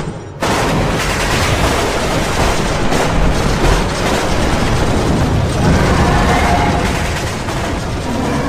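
Battle sound effect: dense, continuous gunfire and booms, cutting in abruptly about half a second in.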